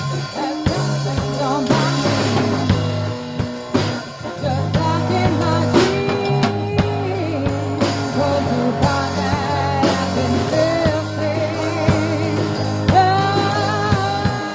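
Live rock band playing an instrumental passage: drum kit hits over steady bass notes and electric guitar, with a wavering, bending melodic lead line on top.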